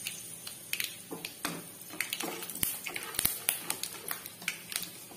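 Peanuts and chana dal frying in hot oil in a kadai on a low flame, with irregular sharp crackles and pops. A wooden spatula stirs them near the end.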